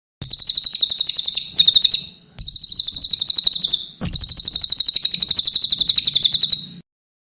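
Cililin songbird singing fast rattling trills of high repeated notes, about nine a second. The song comes in three bursts, and the last is the longest.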